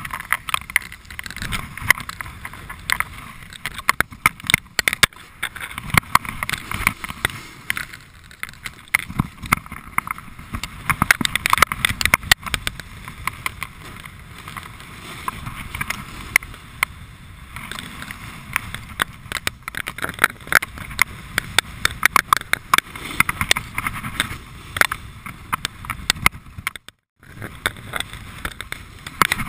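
Snowboard sliding and carving down packed snow: a steady rush of the board's base and edges scraping the snow, with irregular knocks and chatter and wind on the microphone. The sound drops out briefly near the end.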